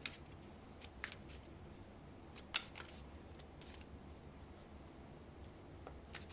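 Oracle cards being shuffled and handled by hand: faint, irregular card snaps and slides.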